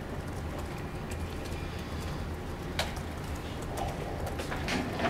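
Quiet room tone: a steady low hum with a few scattered faint clicks and knocks, one sharper click about three seconds in.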